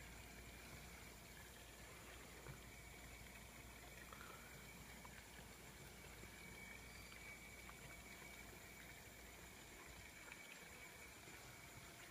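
Near silence: faint outdoor ambience with a faint steady high hum and no distinct events.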